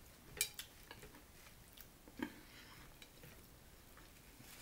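Metal spoon and fork clinking faintly against a glass soup bowl and plate, a few scattered clicks, the sharpest about half a second in.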